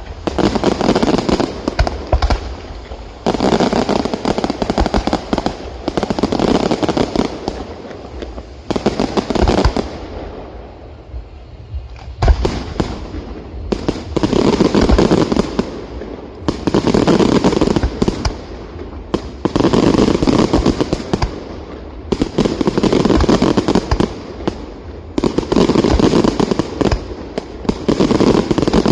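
Fireworks display: repeated clusters of rapid bangs and crackling, each lasting about two seconds and coming every few seconds, with a short lull about ten seconds in.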